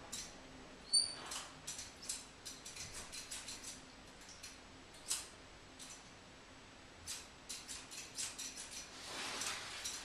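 Foley prop handled close to the microphone: a series of small sharp clicks and ticks in irregular bursts, with a brief high squeak about a second in.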